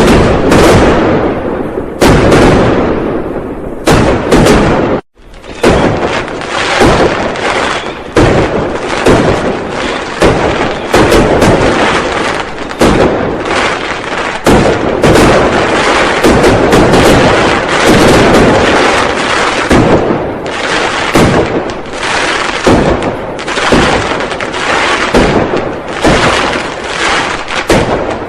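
Firecrackers and fireworks exploding continuously as New Year celebration noise: dense, overlapping bangs with hardly a pause. The sound cuts out briefly about five seconds in.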